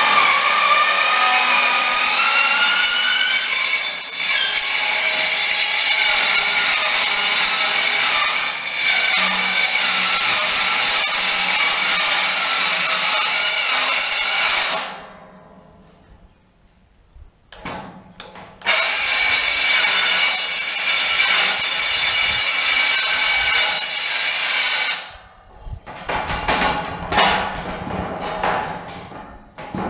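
Cordless circular saw cutting through sheet steel, with a whine that climbs slightly in pitch as the blade settles into the cut. It runs for about fifteen seconds, stops and spins down, then makes a second, shorter cut of about six seconds. Near the end come several loose metal knocks and clatters as the cut piece of steel is handled.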